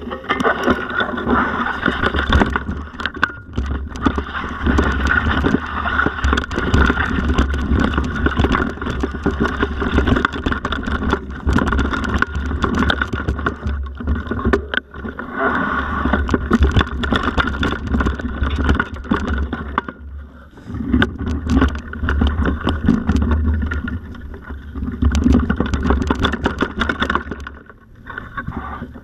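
Mountain bike ridden over a rough dirt-and-rock forest trail: tyres rolling over dirt and stones, and the bike rattling with frequent knocks over bumps. Heavy wind buffeting on the microphone under it all. It eases off briefly about twenty seconds in and again near the end.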